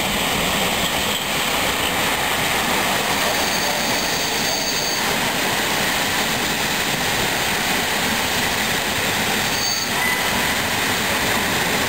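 Passenger coaches behind an ET22 electric locomotive rolling past close by: a steady rumble and rush of wheels on rail, with faint high wheel squeals now and then.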